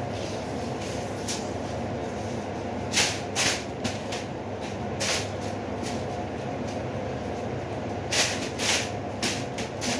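A paper kite rustling in short crackly bursts as it is tugged about on its string, five or so times, over a steady low hum.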